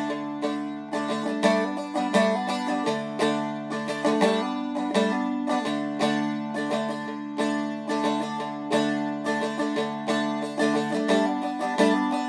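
Seagull Merlin M4 strumstick played with a pick: a quick, evenly paced picked melody over low drone strings that keep ringing underneath.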